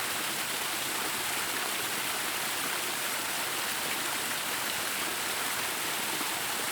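Water of a pumped garden waterfall cascading and splashing, a steady even rush.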